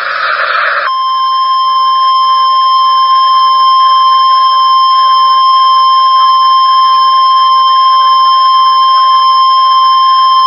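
Weatheradio Canada's warning alarm tone: a single loud, steady, high tone that starts about a second in after a moment of radio static and holds without a break. It signals that a severe thunderstorm warning is about to be broadcast.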